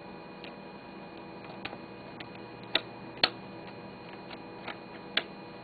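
Irregular sharp clicks, about eight in all, as the bend switches on a circuit-bent Texas Instruments Speak & Read are flicked, over a faint steady hum. The toy's voice has stopped; it seems to have locked up and to need a reset.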